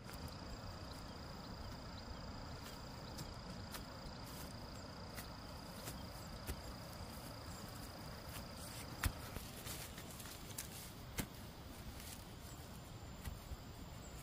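A steady, high, thin insect call that stops suddenly about nine seconds in, over a noisy outdoor background, with scattered sharp knocks; the loudest knocks come about nine and eleven seconds in.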